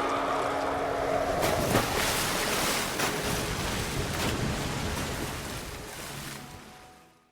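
Giant kraken creature sound effect: a held, low creature cry over rushing, surf-like water noise, with the cry dropping away after about a second and a half and the water noise fading out near the end.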